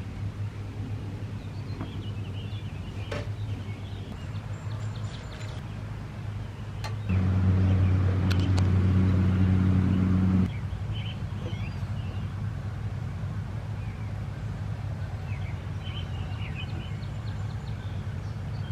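A steady low motor hum that gets louder for about three seconds in the middle, switching up and back down abruptly, with birds chirping now and then.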